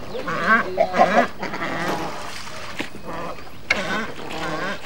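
Fishing cormorants calling: a string of short calls with wavering pitch, loudest about a second in and again near four seconds.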